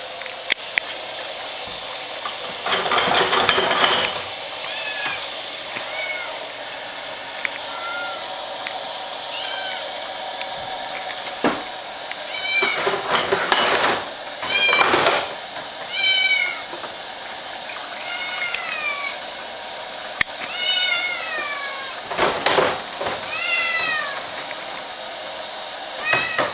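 Kitten meowing over and over, high cries that fall in pitch, one every second or two, demanding to be picked up. Behind it is the steady hiss of water running in the kitchen sink, with a few louder rushes of noise.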